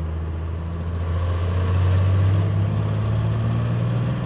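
P-pump 12-valve Cummins turbo diesel pulling at full throttle through the top end, heard at the side-exit tailpipe. Its low exhaust note climbs slowly in pitch and is loudest about halfway through, with a faint high whistle rising in pitch in the first half.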